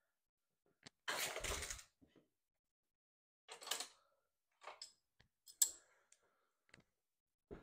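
Scattered short handling noises: a brief scrape about a second in, followed by several soft knocks and clicks.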